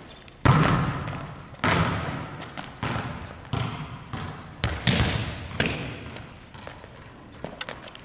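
A volleyball being hit and bouncing on the hardwood gym floor: about half a dozen sharp smacks roughly a second apart, each echoing around a large gymnasium, with a few lighter ticks near the end.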